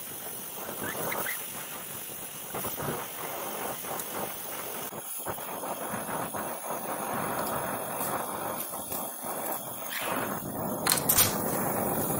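Oxy-fuel torch flame hissing steadily as it heats a metal fitting clamped in a vise, growing louder near the end.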